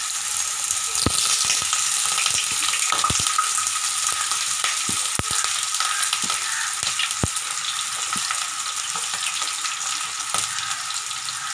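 Water-soaked thin potato slices frying in hot oil in a nonstick pan: a steady sizzling hiss with scattered sharp pops and crackles. The water on the slices makes the oil spit. More slices are dropped in by hand as it goes.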